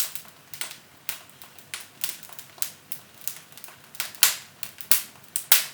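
Firewood burning in a fireplace, crackling with irregular sharp pops and snaps; the loudest few come near the end.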